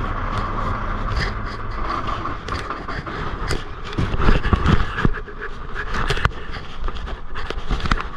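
Tractor-trailer's diesel engine running steadily, with many irregular clicks, knocks and rattles over it.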